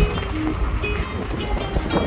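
Music playing, with short held notes, over the steady low rumble of a moving vehicle.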